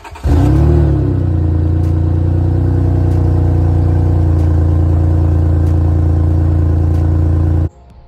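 Honda Accord V6 engine starting with a brief flare, then settling into a loud, steady idle with a heavy low rumble, its exhaust leaking at the opened-up Y-pipe (front pipe). The sound cuts off suddenly near the end.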